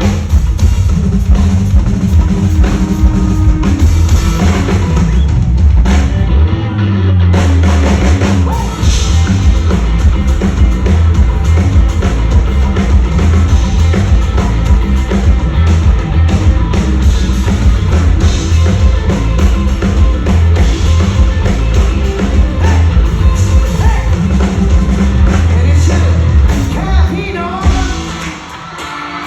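Rock band playing live, loud, with drum kit and bass carrying a steady beat and a voice singing; the music eases off near the end.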